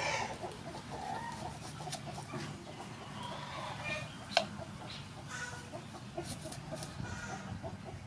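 Chickens clucking on and off while a kitchen knife slices a red onion, with thin clicks of the blade on a wooden chopping board and one sharper knock about four seconds in.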